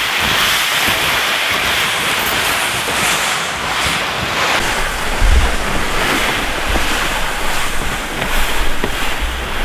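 Steady rushing wind noise, with gusts buffeting the microphone in low rumbles about five seconds in and again near the end.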